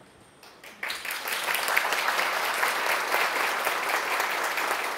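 An audience applauding a speaker who is called up to the front; the clapping starts about a second in.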